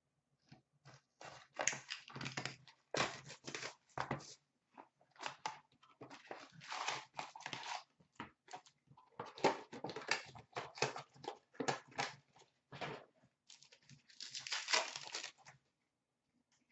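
Trading card packs being torn open by hand and the cards handled: irregular wrapper tearing and crinkling, with cards shuffling and tapping in short bursts.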